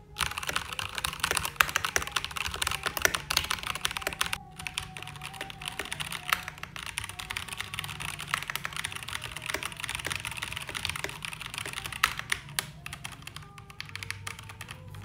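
Fast typing on a 68-key wireless mechanical keyboard with Gateron Yellow linear switches and a transparent acrylic case: a dense run of keystroke clicks that are not too noisy and smooth-sounding, with a brief pause about four and a half seconds in.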